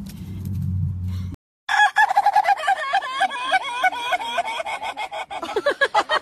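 A rooster calling in a long, loud string of short, bending notes, several a second, starting about a second and a half in. Before it, a low hum with faint ticks that stops abruptly.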